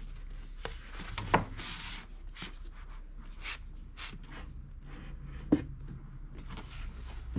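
Paperback manga volumes being slid, shuffled and set down on an IKEA Billy bookshelf: soft rubbing and scraping of books against each other and the shelf, with two sharper knocks, one about a second in and another about five and a half seconds in.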